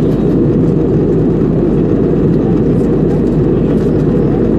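Jet airliner cabin noise heard from a window seat in flight: the steady, loud drone of the engines and airflow, deepest in the low range.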